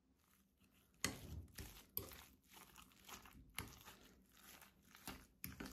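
A fork stirring beaten egg into thick mashed green banana in a glass bowl: irregular squelching and scraping strokes, about one or two a second, starting about a second in, the first stroke the loudest.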